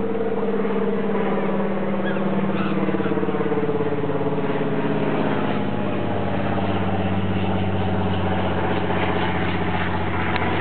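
Steady engine drone holding an even, low pitch throughout.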